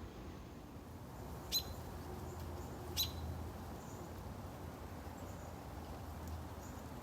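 A songbird gives two short, sharp chip calls, about a second and a half apart, over a steady low rumble of wind.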